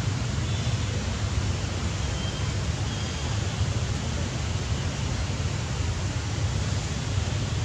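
Wind noise on the microphone: a steady low rumble under an even hiss.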